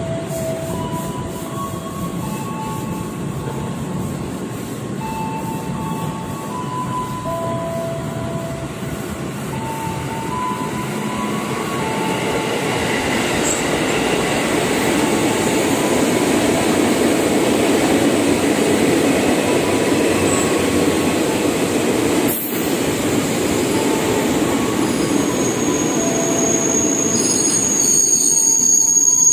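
Container freight wagons rolling past with short squeals from the wheels. A JR 205 series electric commuter train then runs in alongside, its rumble growing louder, with a high-pitched squeal near the end.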